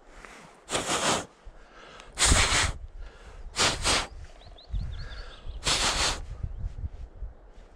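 A person breathing hard close to the microphone: five loud breaths, each about half a second long, one every second or so.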